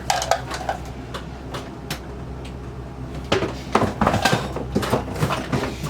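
Sewing machine parts being rummaged through and handled in a box: scattered clicks, knocks and rustling, busiest a little past the middle.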